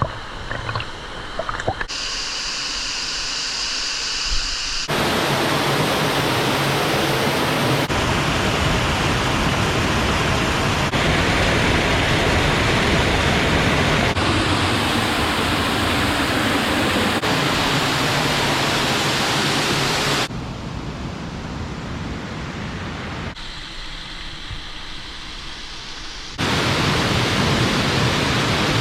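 Waterfall rushing: a steady loud wash of falling water, heard in several shots cut together, so the level jumps up and down at each cut.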